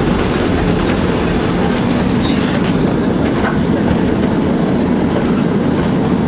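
Tatra T3 tram running along its line, heard from inside the passenger car: a steady, loud rumble of wheels on rails and the car body, with a few faint clicks midway.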